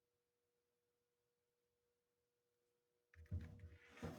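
Near silence with a faint, steady, high hum. About three seconds in come a few soft handling noises.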